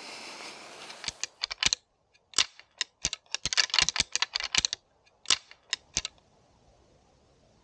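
A pair of deer antlers rattled and ground together by hand: a flurry of sharp, irregular clacks and ticks for about five seconds, then stopping. This is antler rattling, imitating two bucks sparring to draw a buck in.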